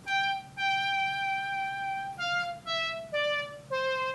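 Roland JU-06 Boutique synthesizer module playing a single-note line through Logic Pro X: one long held note, then shorter notes stepping down in pitch.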